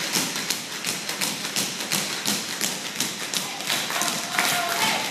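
A group of tap dancers' metal-plated tap shoes striking a wooden stage floor together in a steady rhythm of about three sharp taps a second.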